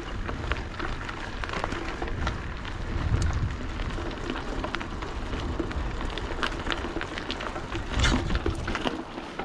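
Mountain bike riding over a rough dirt track: tyres crackling over gravel and sticks and the bike rattling in many irregular sharp clicks, over a low rumble of wind on the microphone.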